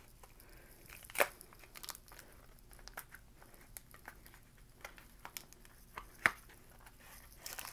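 Foil-lined Digimon trading card booster pack wrapper crinkling and crackling in the hands as it is peeled open, with two louder snaps, one about a second in and one near six seconds.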